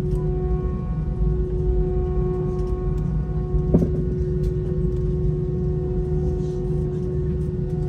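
Airbus A319's IAE V2500 turbofan engines heard from inside the cabin: a steady engine hum holding one constant tone over a deep rumble. A single short knock comes about halfway through.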